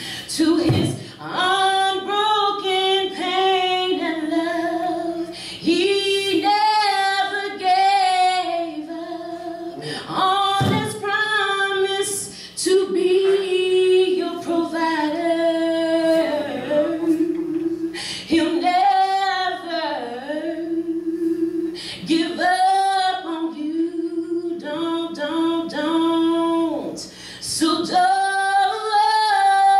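A woman singing a gospel song a cappella into a handheld microphone, with no accompaniment. She holds long notes with vibrato, broken by short pauses for breath.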